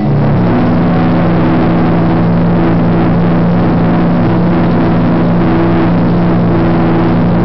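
Large steam whistles blowing together in a loud, low, sustained chord over heavy steam hiss, starting suddenly, with a few higher notes cutting in and out above it.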